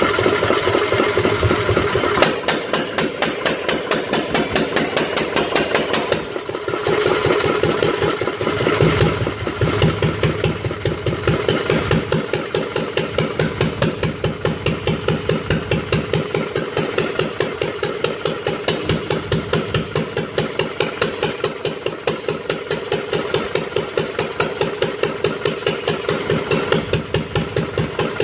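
Ruston & Hornsby 1VSH single-cylinder diesel engine running at its first startup, with a rapid, even firing beat. The beat dips and picks up again between about six and ten seconds in, then settles.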